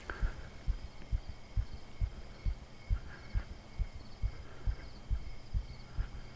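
Soft, low thumps in an even, pulse-like beat, a little over two a second, with a faint steady high hum behind them.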